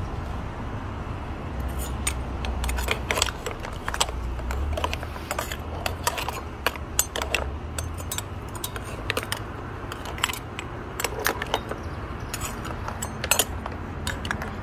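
Metal ladle clinking and scraping against clam shells and the cast iron Dutch oven as the broth is stirred and spooned over the clams: a string of irregular sharp clinks starting about a second and a half in.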